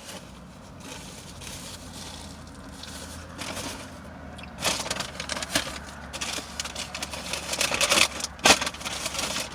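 Paper food bag and wrapper rustling and crinkling in irregular bursts from about halfway through, with a sharp click near the end, over a steady low hum inside the car.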